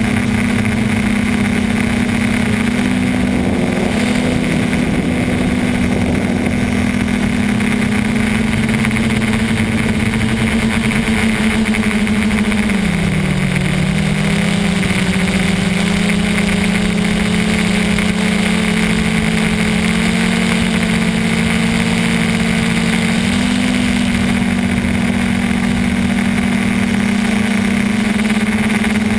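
QX450 quadcopter's electric motors and propellers humming steadily, heard close up from the onboard camera. The pitch dips about 13 seconds in and comes back up near 24 seconds as the motor speed changes.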